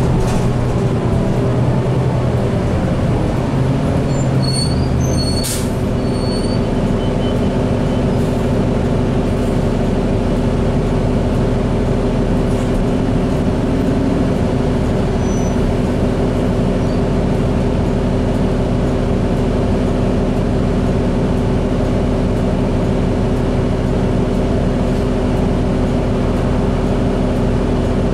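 Cabin noise of a 2008 New Flyer D40LFR diesel transit bus under way: a steady engine and drivetrain drone with a whine that drops in pitch over the first few seconds. A brief click comes about five and a half seconds in.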